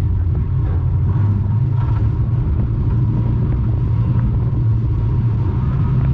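Morris 1100 banger racing car's engine running at fairly steady revs, a loud low drone heard from inside the car's cabin.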